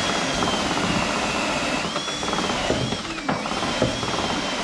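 Cordless power tool's motor whining as it works at a bolt holding a Land Rover Defender's wing to the bulkhead. The pitch sags under load twice in the middle, then recovers.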